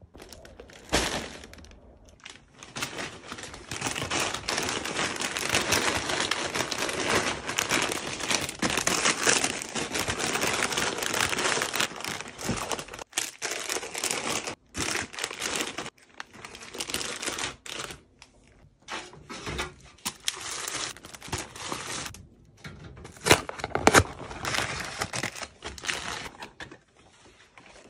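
Plastic snack-food bags crinkling and rustling as they are handled and set onto the shelves of a rolling cart. There is a dense stretch of rustling early on, then the crinkles come in shorter bursts, with a couple of sharp knocks a little before the end.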